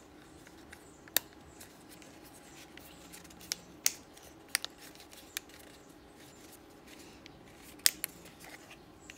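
Sharp plastic clicks and snaps of a DJI Mavic Air battery's plastic shell and end cover being pressed back together by hand, several separate clicks spread unevenly, the loudest near the end.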